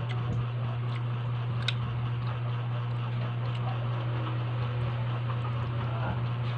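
Steady low hum, with a few faint light clicks and taps from eating food, the sharpest click about two seconds in.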